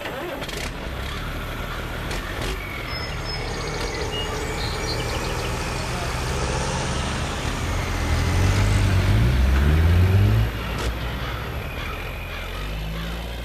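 Heavy diesel tractor engine running, dubbed over a toy scene. Its pitch climbs and it grows loudest about eight seconds in, then it drops back suddenly a little after ten seconds.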